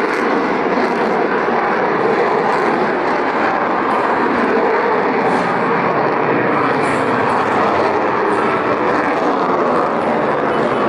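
The twin turbofan engines of a Sukhoi Su-35 fighter jet at high power during takeoff and a steep climb. It is a loud, steady rush of jet noise that does not let up.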